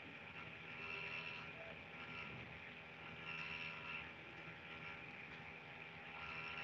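Faint steady hum and hiss of background room noise, with several thin steady tones running through it.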